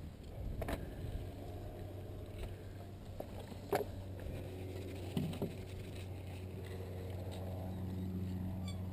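Mountain bike and gear being handled after the ride stops on a dirt trail: a few scattered clicks and knocks, the loudest about four seconds in, over a low steady hum.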